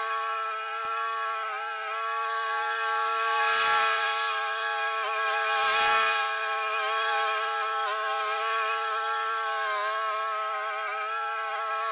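Walk-behind lawn mower engine running steadily while cutting thick, tall grass. Its pitch dips slightly a couple of times as the engine takes the load. Two brief louder rushes of noise come about four and six seconds in.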